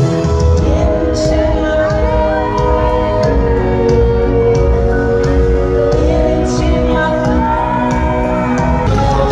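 Live concert music played loud through an arena sound system: held keyboard chords over heavy bass and drums, with singing.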